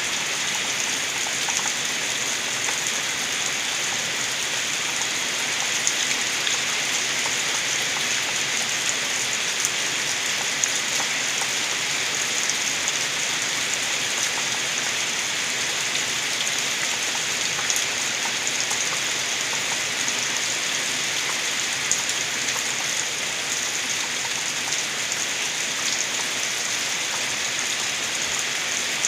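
Rain falling steadily, with rainwater gurgling as it runs off: an even hiss with scattered drop ticks, unchanging throughout.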